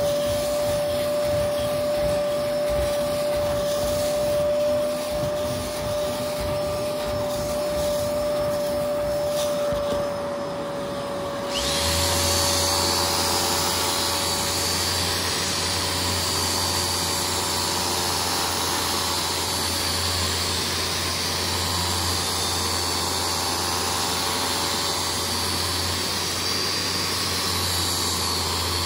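A vacuum-type cleaning machine motor running with a steady whine. About eleven seconds in it gives way abruptly to a power drill driving a scrubbing brush on carpet: a deeper, rougher hum with a high whine over it.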